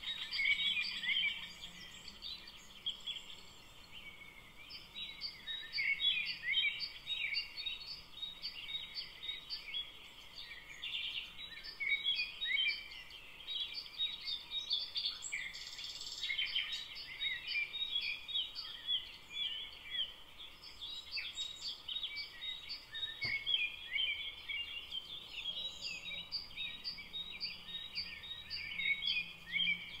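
Forest birdsong: several songbirds singing and chirping at once in a dense, continuous chorus of short high notes and trills, with a fast, evenly repeated high note running through most of it.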